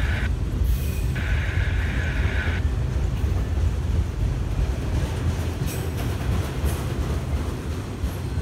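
Autorack freight cars rolling slowly past, a steady heavy low rumble of steel wheels on rail. About a second in, a higher-pitched scraping noise rises over it for about a second and a half. A few faint clicks follow later.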